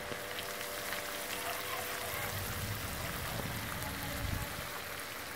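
Chicken thighs simmering and sizzling in lime beer in a frying pan over a charcoal grill, a steady bubbling hiss with fine crackle.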